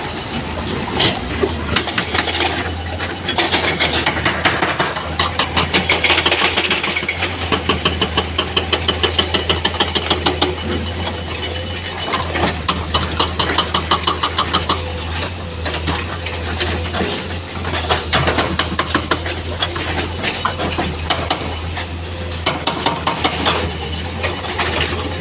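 Heavy diesel engine of earthmoving machinery running steadily, with repeated clanks and rattles and spells of rapid, even knocking.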